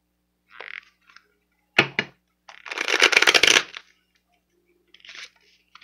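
A deck of tarot cards being shuffled by hand: a few short flutters of cards and a sharp clack near two seconds in, with the loudest, second-long rattle of cards about three seconds in.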